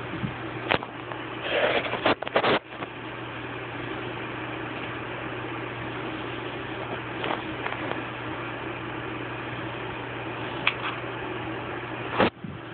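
Steady low hum and hiss, with scuffles and knocks from a kitten playing in a carpet-covered cat tree: a cluster of rustles and knocks about two seconds in, a few single taps, and a sharp knock near the end.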